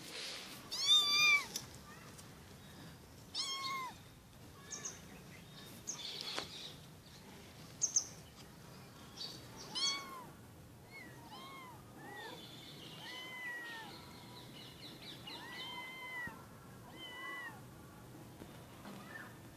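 Ginger kittens and their orange tabby mother cat meowing: a few louder meows about a second, three and a half seconds and ten seconds in, then a run of short, higher mews in quick succession.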